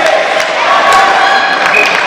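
Ice hockey rink noise: many voices shouting and calling over one another, with a few sharp knocks of sticks and puck on the ice.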